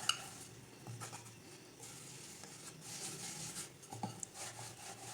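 Rolling pin rolling maida dough out thin on a rolling board: faint rubbing and scraping with a few light knocks, about a second in and again near four seconds.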